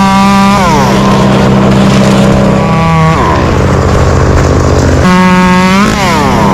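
Chainsaw revved to full throttle three times, each burst held briefly and then falling away as the throttle is let off, over the steady drone of a larger engine running.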